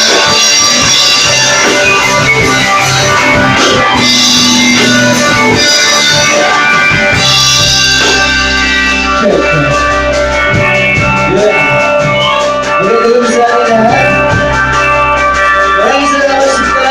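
Live rock band playing loudly: electric guitar and drums with cymbal crashes, then from about halfway a melody line with sliding pitch over held chords.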